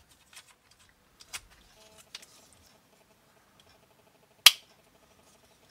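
Plastic parts of a modular wiring system being handled and clipped together: a few light clicks, then one sharp plastic snap about four and a half seconds in as a moulded clip latches.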